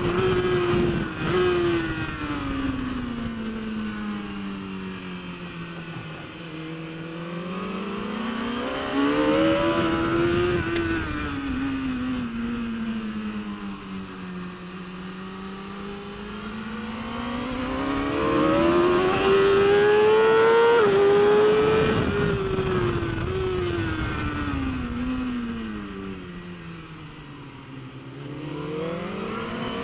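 BMW S1000RR's 999 cc inline-four superbike engine at racing speed, the revs climbing hard and then falling away in steps with downshifts, three times over, with wind rushing past.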